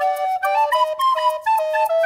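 Background music: a quick melody of short, rapidly changing notes.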